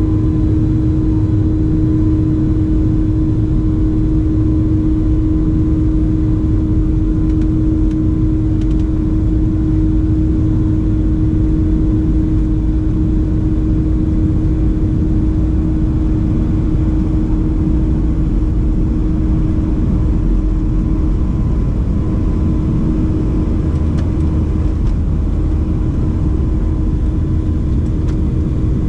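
Boeing 737-700's CFM56 jet engines running, heard from inside the passenger cabin: a loud, steady rumble with a constant droning tone over it.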